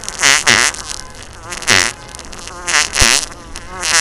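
A string of about five short, loud, sputtering wet fart noises, one after another, some less than a second apart.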